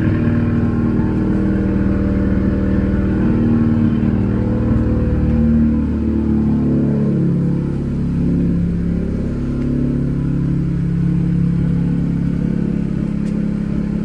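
Honda Civic Si's turbocharged 1.5-litre four-cylinder engine idling, very loud, with a steady drone whose pitch wavers a little around the middle.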